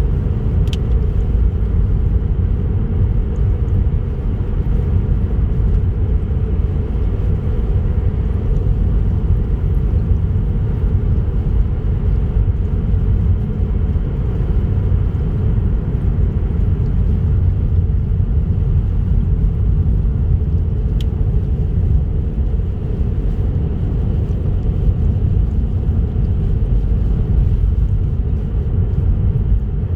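A car driving on a highway: a steady low rumble of road and engine noise.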